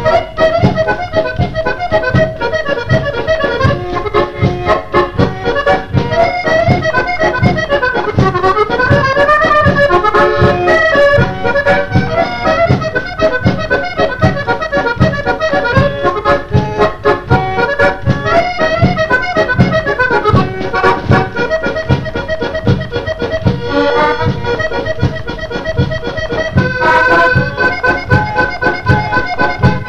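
Musette waltz played on accordion, with a drum kit keeping a steady waltz beat. The melody runs up and down in quick phrases, and a high note is held near the end.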